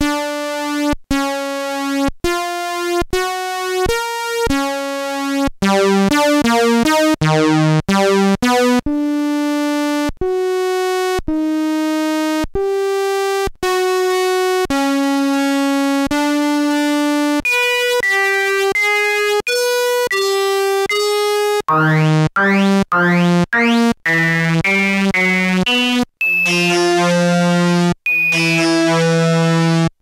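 Raw wavetable synthesizer notes generated by sorting algorithms: each wavetable is the successive snapshots of a sine wave being bucket-, shell- and circle-sorted, played with no effects, filters or envelopes. Bright, brassy tones; short separate notes about one a second at first, then longer held notes, with sweeping overtones in the later notes.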